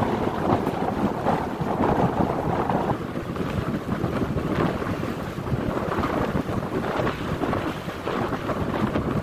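Wind gusting over the phone's microphone, a rough, fluctuating rumble, with waves washing on the shore underneath.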